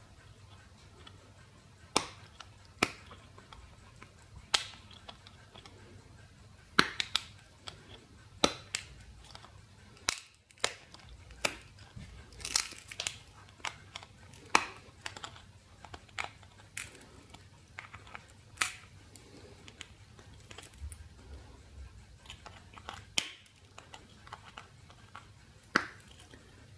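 Side cutters biting into and crushing the thin metal E14 screw base of a small LED filament bulb: a long run of sharp, irregular snaps and crunches, each bite a separate click.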